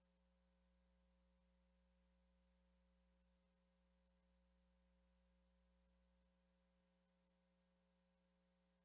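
Near silence: only a faint, steady hum in the recording's background.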